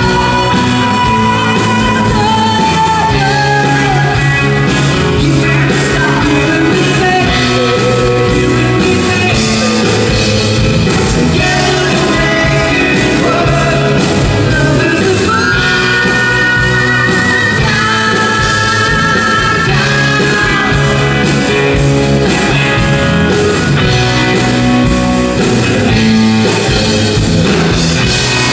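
A woman singing lead vocals into a microphone over a band playing a rock-style song, with guitar.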